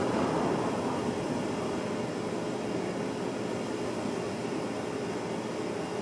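Steady drone of a small car on the move, with a constant hum held at one pitch.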